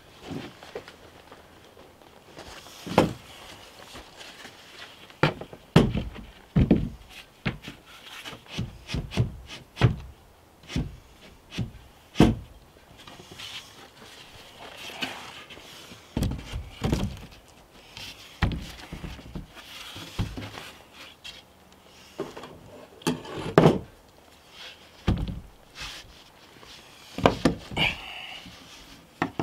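Irregular wooden knocks and thuds as a plywood panel is handled and fitted into a wooden wall opening, wood bumping on wood, some blows sharper than others.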